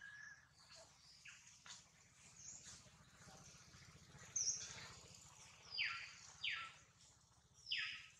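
Birds calling: faint scattered chirps, then about four short, loud calls that each sweep sharply downward in pitch, bunched in the second half.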